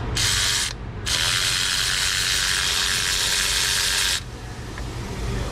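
Air ratchet running in two bursts, a short one and then one of about three seconds that stops abruptly, spinning a spark plug out of an LS V8's cylinder head.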